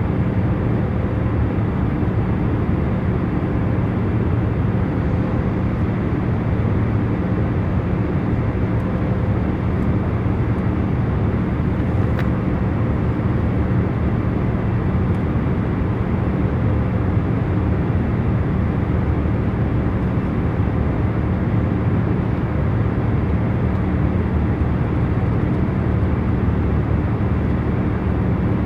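Airliner cabin noise in cruise: a steady, even rumble of engine and airflow noise with a faint constant hum.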